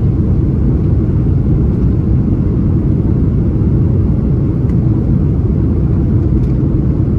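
Steady low rumble of an Airbus A330-300's Rolls-Royce Trent 700 engines and airflow, heard inside the passenger cabin, with an even level throughout.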